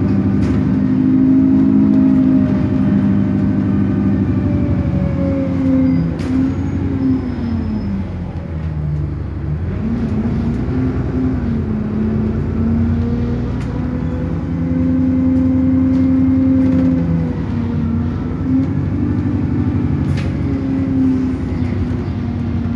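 Interior noise of the diesel double-decker bus E213 under way: the engine and driveline drone rises and falls with road speed, easing off about six to nine seconds in and picking up again soon after. A few short rattles or knocks from the bodywork are heard along the way.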